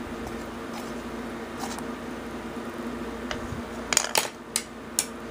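A few sharp clinks from about four seconds in, a utensil knocking against the frying pan of sobameshi, over a steady mechanical hum.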